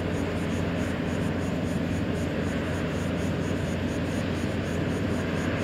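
British Airways Airbus A350 on final approach, its Rolls-Royce Trent XWB engines heard from a distance as a steady jet noise with a low hum.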